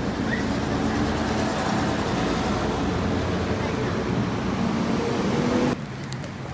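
Street traffic: a motor vehicle passing close by, engine and tyre noise with a slight rise in engine pitch, cutting off suddenly about five and a half seconds in.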